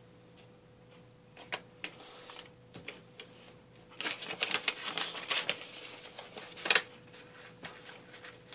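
A sheet of printer paper being folded and creased by hand: a few light taps and rustles, then about three seconds of crinkling from about four seconds in, ending in one sharp crackle.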